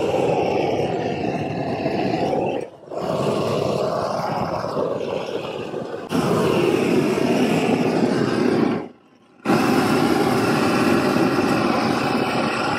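Small propane torch burning with a steady rushing flame, heating the self-adhering rubber membrane so it bonds to the painted wall. The sound cuts out briefly twice.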